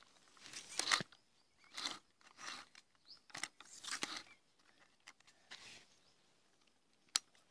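Faint handling noise as the aluminium legs of a tripod are extended by hand: short scrapes and rustles of the leg sections and their plastic lever locks, with one sharp click near the end.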